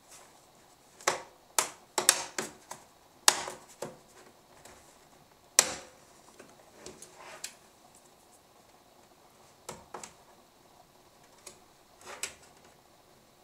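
Sharp plastic clicks and snaps as the round feet on the underside of a Xiaomi Mi Body Composition Scale are worked loose and one is pried off. A quick cluster of clicks comes in the first few seconds and a single loud snap about five and a half seconds in, followed by a few fainter clicks.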